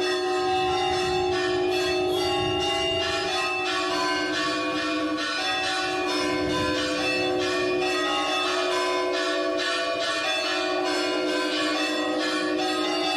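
Church bells pealing as joy bells: several bells struck in quick, overlapping succession, their tones ringing on together in a continuous, steady peal.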